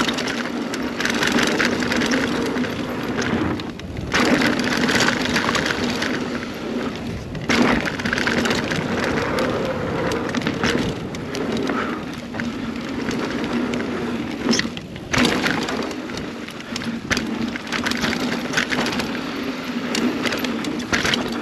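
2021 Scott Spark 970 full-suspension mountain bike descending a dirt trail: tyres rumbling over dirt and roots, with the chain and components rattling and clacking throughout. The noise drops away briefly three times.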